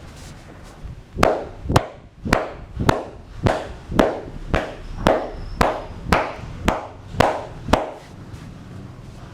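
Hands striking in massage percussion (tapotement): a steady run of about thirteen sharp slaps or chops, roughly two a second, starting about a second in and stopping near the end.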